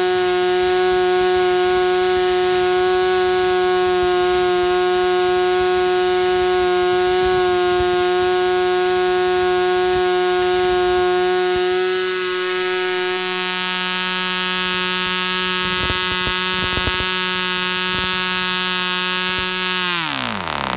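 PAW 100 1 cc twin-ball-race model diesel engine running at steady high speed on a test bench, swinging a 7x4 nylon propeller, with a loud buzzing note. Near the end its pitch falls sharply as the engine slows and dies.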